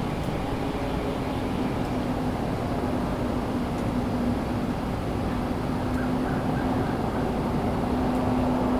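Distant highway traffic: a steady low rumble of passing vehicles with a held droning hum, swelling slightly louder toward the end.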